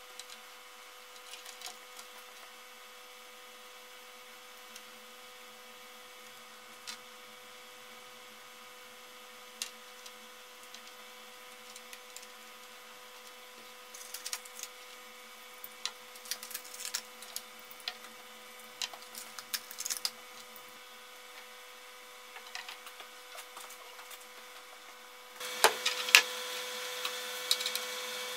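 Small clicks and rustles of copper wire and wire connectors being handled and pressed into a wooden beam, over a steady hum. About three seconds from the end the background gets louder and a few sharper knocks are heard.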